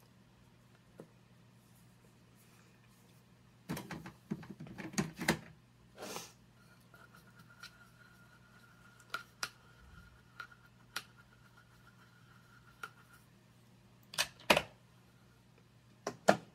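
Makeup cases and brushes being handled and set down: light clicks and clatter, a quick cluster about four seconds in and sharper single clicks after, over a faint steady hum.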